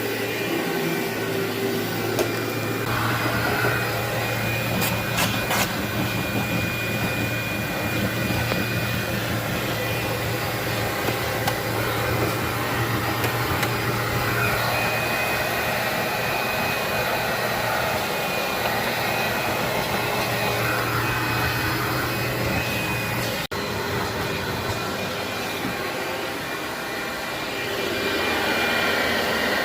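Vacuum cleaner running steadily on carpet, a constant motor hum and whine with a few sharp crackles of grit being sucked up.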